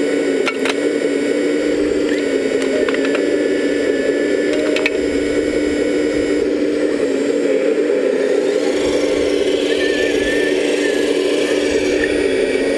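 A 1/14-scale RC model machine running with a steady whir and hum that holds one pitch throughout, with a few faint clicks.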